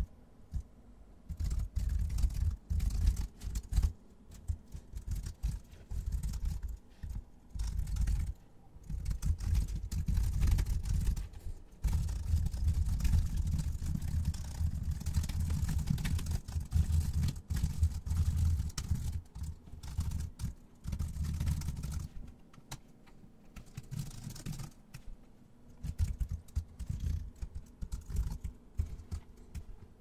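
Computer keyboard being typed on in fast runs of keystrokes, broken by short pauses.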